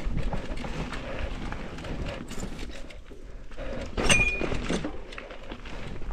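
Mountain bike rolling fast over a loose gravel trail: tyres crunching on stones and the bike rattling with many small knocks. About four seconds in comes a sharp metallic clack with a short high ring.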